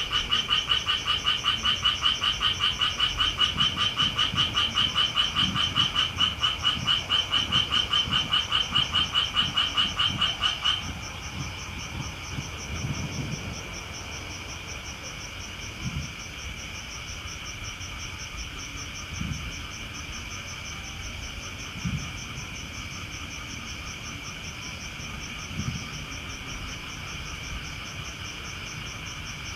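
Frogs calling in a loud chorus of fast, pulsing calls that stops suddenly about eleven seconds in. Grass insects keep up a steady high trilling throughout and carry on alone after the frogs stop, with a few faint low thuds now and then.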